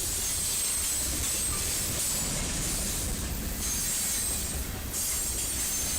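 Freight train rolling past with a steady rumble of wheels on rail, and a thin high wheel squeal that comes and goes.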